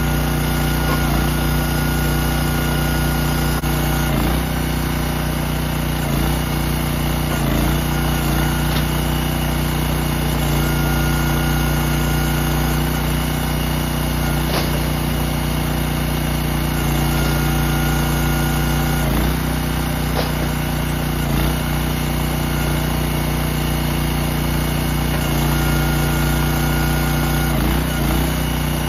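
Small gas engine of a hydraulic log splitter running steadily, its pitch dipping briefly every couple of seconds as the ram pushes rounds through the wedge. A higher whine comes and goes with the cycles.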